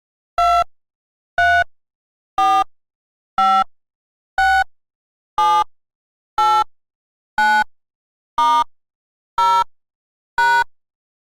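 A series of short electronic beeps, about one a second, eleven in all, with the pitch shifting a little from beep to beep and dead silence in between.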